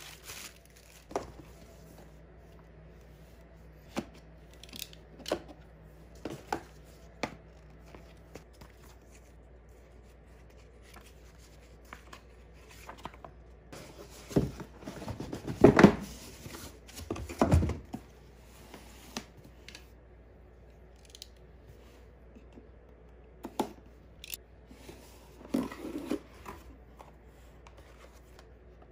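Cardboard boxes and plastic air-cushion packing being handled: scattered rustles, taps and scrapes, with a louder stretch of cardboard sliding and rubbing against cardboard from about 14 to 18 seconds in as the inner box comes out of the shipping box.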